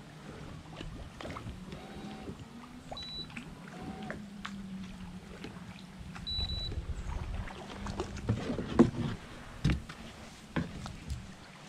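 The kayak's bow-mounted Minn Kota electric trolling motor running with a steady low hum, with two short high beeps. Near the end the hum gives way to a few sharp knocks of a paddle against the plastic kayak hull.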